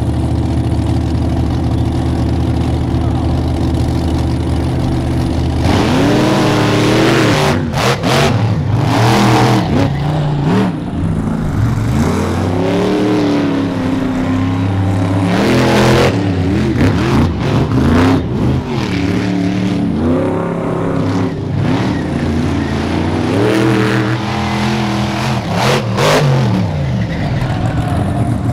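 Monster truck engines idling steadily, then from about six seconds in revving hard again and again in rising and falling surges as the trucks race, with a few short knocks along the way.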